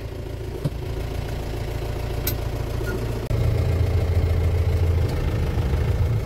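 Car engine running, heard from inside the cabin as a steady low rumble that becomes louder a little past halfway.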